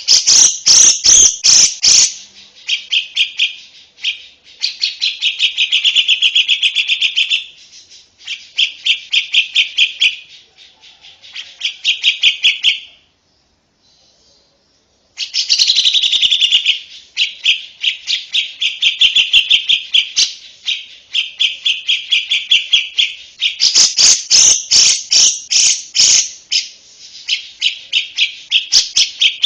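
A lovebird singing long, rapid trills of sharp, high chirps in phrases a few seconds long, with a break of about two seconds near the middle.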